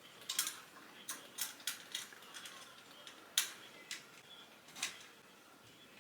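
Light, irregular clicks and clacks of small hard objects being handled, about ten in all, the sharpest about three and a half seconds in.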